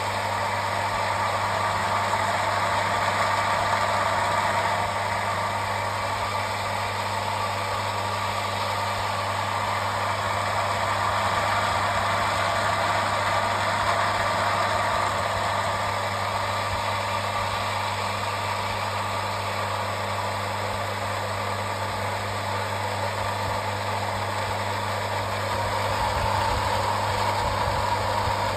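Metabo domestic water pumping station's electric pump running steadily: a constant motor hum with an even hiss over it.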